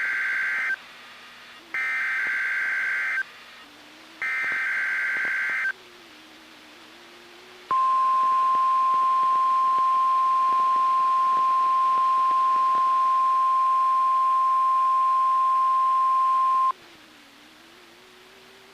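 NOAA Weather Radio SAME header: the end of one harsh buzzing data burst, then two more identical bursts about a second apart, each about a second and a half long. Next comes the steady 1050 Hz warning alarm tone, held for about nine seconds, which cuts off to faint radio hiss. This is the signal sequence of the weekly test of the alert system.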